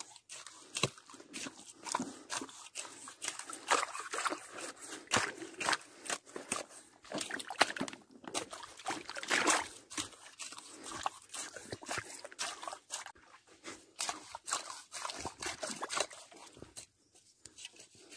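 Wet mangrove mud and shallow water squelching and sloshing, with a dense run of irregular clicks and crackles, quieter near the end.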